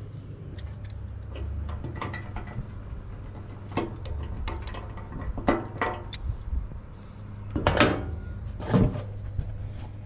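Short metallic clicks and taps from a hand fitting a Dzus hood fastener, with nylon washers and an E-clip, into a tractor's sheet-metal hood flap. The loudest clicks come close together near the end.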